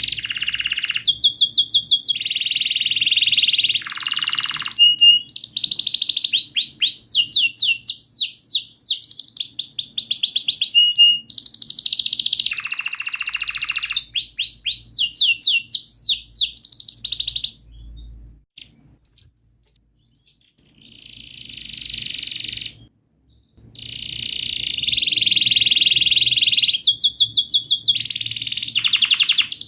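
Domestic canary singing a long song of chirps and fast rolling trills of rapidly repeated high notes. The song breaks off for a few seconds about two-thirds of the way through, then starts again.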